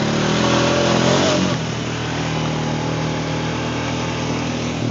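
ATV engine revving hard under load, rising in pitch for about a second and a half, then easing back to steady running. The load comes from climbing a steep grassy hill.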